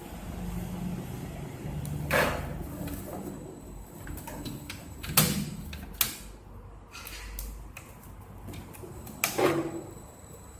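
Handling noise from a DVR case and hard drive being worked on: a few sharp knocks and clicks, about four, the loudest near the middle, over a low rumble.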